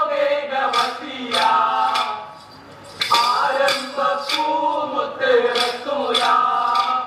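Kolkali stick dance: male voices singing a folk song while short wooden sticks are clacked together in time, about two sharp clacks a second. The singing drops off for about half a second partway through, then picks up again.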